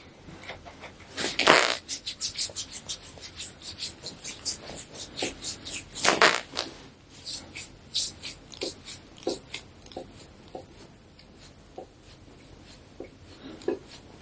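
Hands massaging a patient's skin in quick, rhythmic strokes, about four or five a second, with two louder, longer strokes about 1.5 s and 6 s in. The strokes thin out into occasional soft knocks in the second half.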